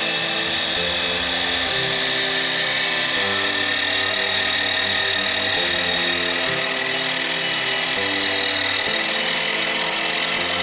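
DeWalt sliding mitre saw running with a steady high whine as its blade scores along the mitred end of a pine skirting board. Background music with low held chords plays underneath.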